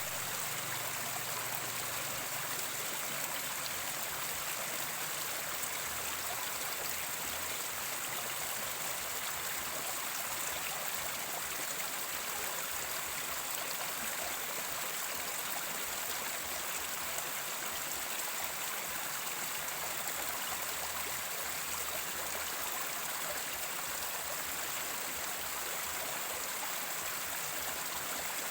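Mountain stream flowing over rocks, a steady, even rush of water.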